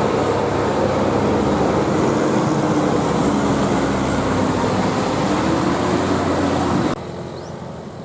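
A bus engine running loud and close, with a slowly wavering engine note over steady road noise; the sound drops off abruptly near the end.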